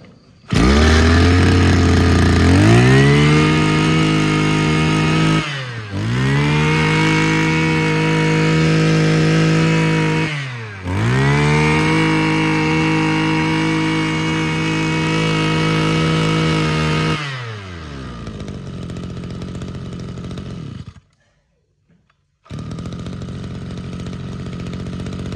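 Mitsubishi TU26 26cc two-stroke brush cutter engine idling, then revved up to high speed and held there three times, dropping back briefly between each. It settles back to idle, stops for a moment near the end, then idles again.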